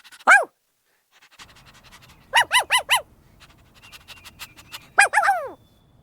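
Peacock calls: a single loud call falling in pitch at the start, a quick series of four short calls about two and a half seconds in, and another burst of calls near the end.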